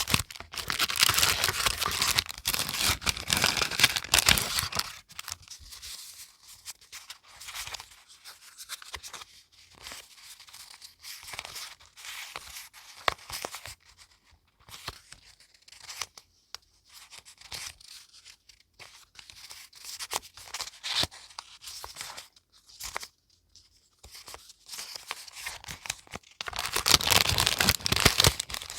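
Paper being torn and handled: dense tearing and crinkling for the first few seconds and again near the end, with quieter rustles and small crackles and taps between.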